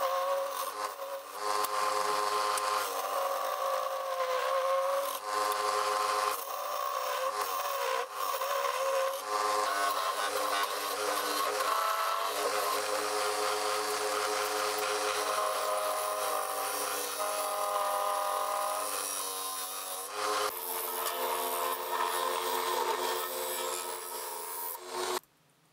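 Wood lathe running while a hand-held turning tool cuts into the spinning wood blank: a steady scraping hiss of the cut over the lathe's motor whine. The sound stops abruptly near the end.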